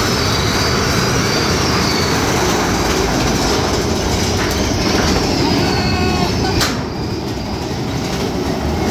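Steady loud rumble and rattle of a moving vehicle, with a faint high squeal in the first few seconds and a sharp click about six and a half seconds in.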